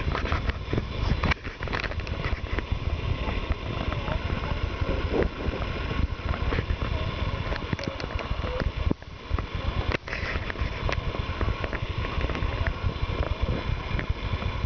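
Horses walking through a deep layer of dry fallen leaves, their hooves rustling and crunching in an uneven crackle over a steady low rumble on the microphone.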